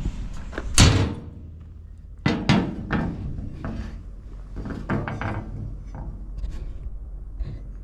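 Clunks and knocks from a large welded steel practice plate being picked up and moved. The loudest comes about a second in, followed by several lighter knocks.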